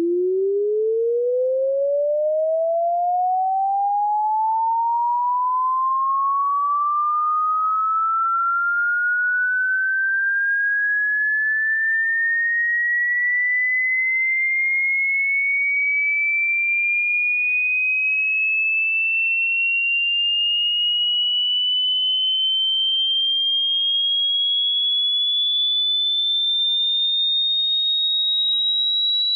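A single pure sine tone sweeping steadily upward in pitch, from a low hum to a high whistle, the rise slowing as it climbs.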